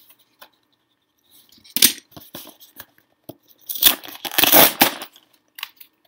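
A cardboard shipping box being slit with a knife and torn open by hand. A short rip comes about two seconds in, with small scrapes and knocks, then a longer, loud tearing of the cardboard flap from about four to five seconds.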